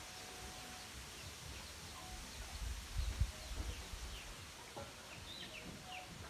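Quiet rural outdoor ambience with small birds giving many short, falling chirps. A brief low rumble on the microphone about three seconds in is the loudest moment.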